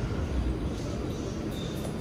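Steady low rumble and hum of a Bombardier R179 subway train standing at the platform with its doors open.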